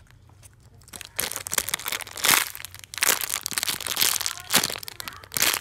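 Clear plastic bag around a foam squishy toy crinkling as hands squeeze and handle it, starting about a second in and going on in a dense run of crackles.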